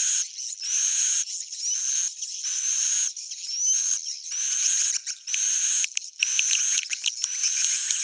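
Swiftlet roosting-call ('suara inap') lure recording: edible-nest swiftlet twittering in high, buzzy chirping bursts that repeat about every three-quarters of a second, each with a rising whistle. It is played to draw swiftlets into a nesting house. In the second half the bursts break up into a quicker run of clicks.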